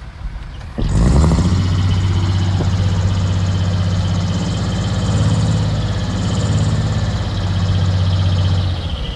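Diesel engine of a heavy earthmoving machine throttling up sharply about a second in, then running loud and steady before easing off near the end.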